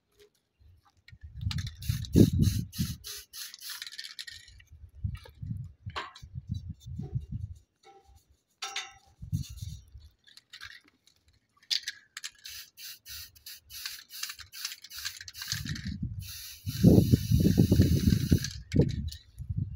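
Aerosol spray paint can hissing in bursts of a few seconds: about two seconds in, again around twelve seconds, and a longer burst from about sixteen seconds to near the end. A low rumble sits underneath.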